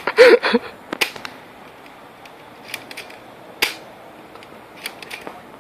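A short loud yell just after the start, then several sharp clicks of a BB gun being fired, spaced irregularly about a second or so apart, two of them stronger than the rest.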